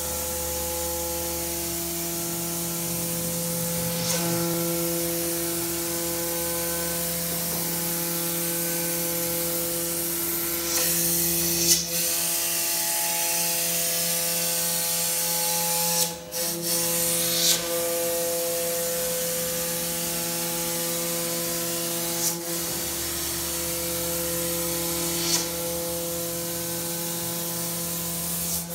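CNC router milling polyurethane foam: steady whine of the motors over a constant hiss, with the tones shifting pitch several times as the machine changes moves. A few brief, sharper swishes and clicks are heard along the way.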